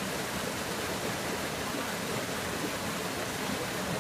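Small waterfall pouring into a rock pool: a steady, even rush of splashing water.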